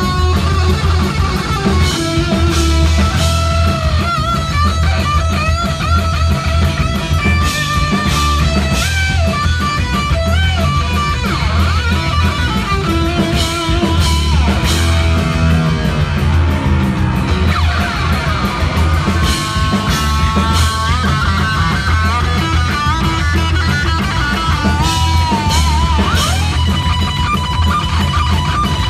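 Heavy metal band playing live and loud: distorted electric lead guitar with bent and wavering notes, over bass and drums with cymbal crashes. Near the middle the guitar slides down in pitch.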